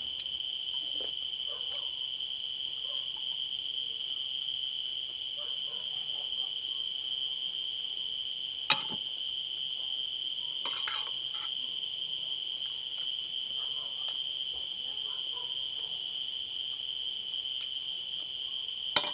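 Steady high-pitched chirring of crickets at night. Two sharp clicks come a little under nine seconds in and again near the end, with a brief scrape around eleven seconds in.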